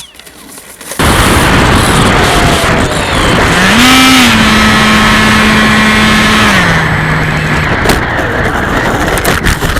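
Loud rushing roar of a radio-controlled model jet, starting abruptly about a second in. A droning tone inside it rises slightly, holds steady, then drops a step about seven seconds in.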